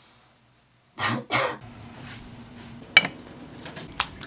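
A man coughs twice, hard, about a second in. Then a few sharp clicks and taps, the loudest a little after the coughs and another near the end.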